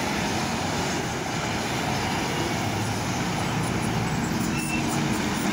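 Steady road traffic with a Kenworth tractor-trailer fuel tanker's diesel engine running as the rig turns through the intersection.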